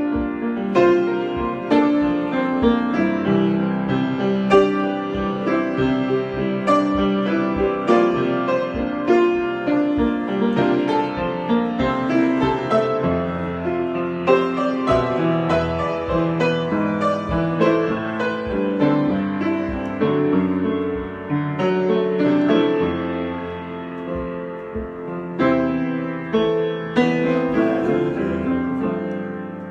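Solo piano improvisation: continuous playing of chords and melody, with sustained and repeated notes.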